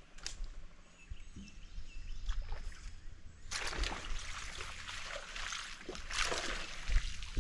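A small spotted bass strikes a topwater buzzbait and thrashes at the surface, a burst of loud splashing that starts about three and a half seconds in and runs for several seconds, with a sharp splash near the end as it comes up out of the water on the hook.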